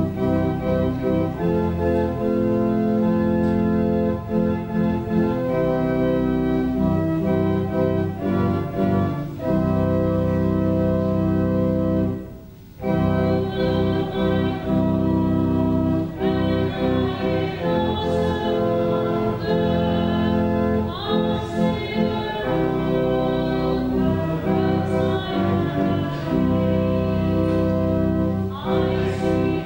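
Organ playing slow, held chords, with a brief break a little before halfway. People's voices come in over the organ in the second half.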